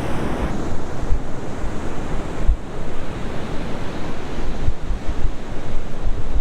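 Ocean surf washing on a beach, a steady rushing noise, with wind buffeting the microphone in irregular low gusts.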